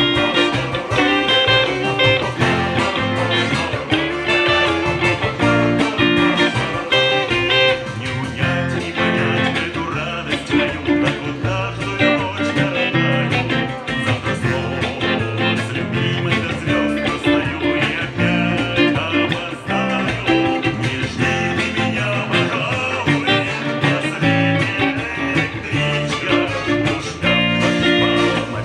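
Les Paul-style electric guitar picked continuously, playing the song's notes and chords without a break.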